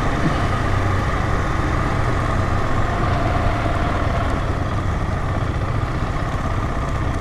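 Dirt bike engine running steadily at cruising pace on a gravel track, under a constant rush of wind and tyre noise.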